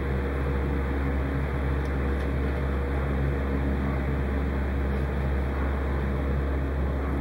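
A steady low hum with an even hiss over it, unchanging throughout, like a small motor or fan running.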